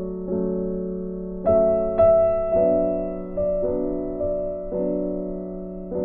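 Background music: soft piano chords, struck about once a second and left to fade.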